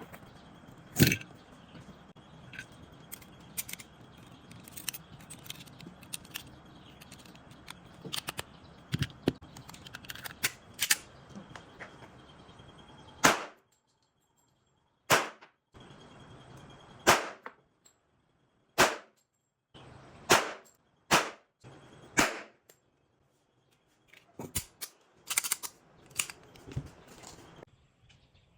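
Colt Gold Cup Trophy .45 ACP pistol fired in single shots, loud sharp reports about one to two seconds apart through the second half, with fainter shots and clicks in between.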